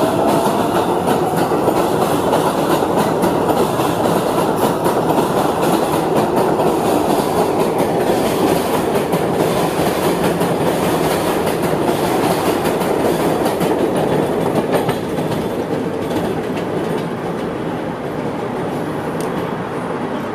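Elevated New York City subway train running on a raised steel track as it pulls away from the station: loud, steady rumble with wheels clattering over the rail joints. The noise drops somewhat about fifteen seconds in.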